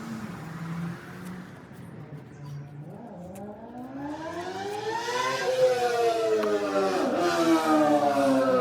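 An engine revving: its pitch rises over about two seconds, then falls slowly, with a brief dip about seven seconds in.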